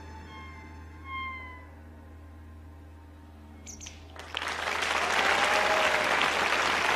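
The last sustained notes of the band fade out quietly. About four seconds in, a large concert audience breaks into loud applause, with a whistle rising out of the crowd.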